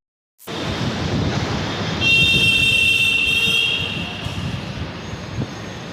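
Metro train running, with a steady rumble joined about two seconds in by a loud, high steady squeal that fades out over the next two seconds.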